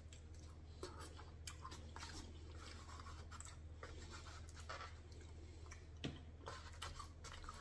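Faint chewing with small clicks and scrapes of a fork in a foam takeout container, one sharper tick about six seconds in.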